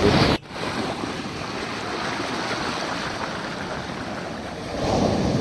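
Sea surf washing up a sandy beach: a steady rush of breaking waves and foam that swells louder near the end. In the first moment a louder gust of surf and wind cuts off abruptly.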